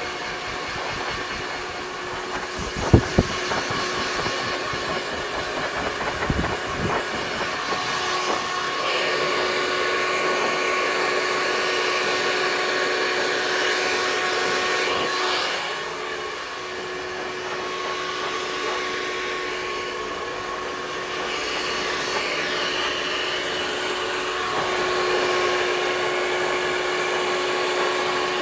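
Hand-held hair dryer running steadily, a hiss of blown air over a motor hum, with a few sharp clicks about three and six seconds in.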